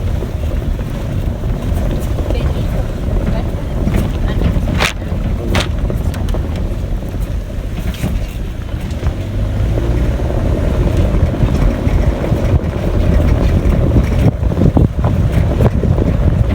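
Wind buffeting the microphone aboard a moving motorboat: a loud, steady low rumble, with a few sharp knocks.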